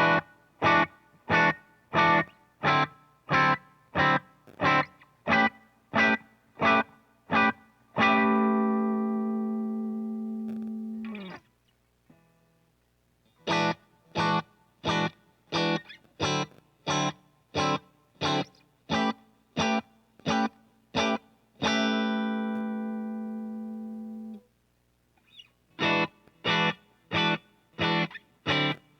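Ibanez S670QM electric guitar played clean through a Deluxe Reverb amp patch: short chord stabs repeated about one and a half times a second, then a chord left to ring for about three seconds before it is stopped. The pattern comes twice, and the stabs start again near the end, over a faint amp hum.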